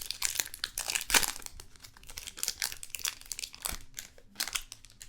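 Trading card pack wrappers being torn open and crinkled by hand, an irregular run of crackling and rustling.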